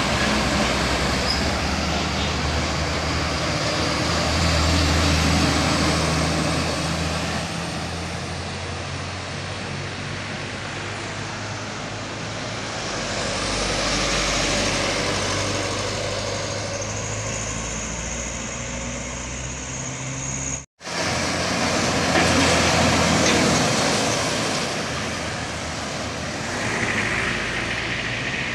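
Heavy trucks driving past close by one after another, including a fuel tanker truck and a cargo truck: engine and tyre noise swelling and fading three times as each goes by. The sound cuts out for an instant about two-thirds of the way through.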